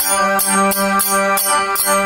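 Instrumental break in a Marwari folk song: a steady held drone with melody tones over it, kept in time by percussion strokes about three a second.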